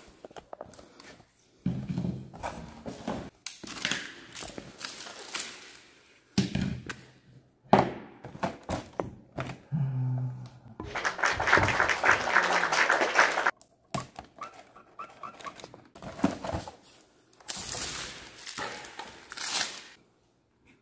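Hands handling a cardboard snack box and tape: rustling, knocks and thunks, with a couple of seconds of continuous rasping past the middle.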